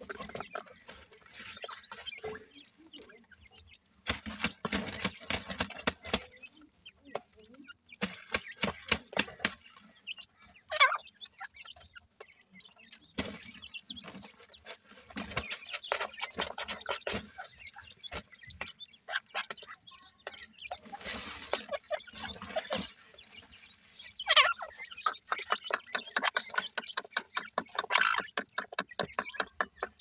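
Grey francolins and their chicks clucking and calling while scratching and pecking in dry, gravelly dirt, with bursts of quick clicking scratches.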